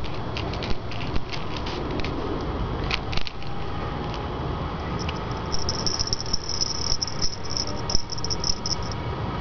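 Outdoor background with a steady low rumble and scattered light clicks and ticks. From about five and a half seconds in, a high, thin chirping flutters for a few seconds.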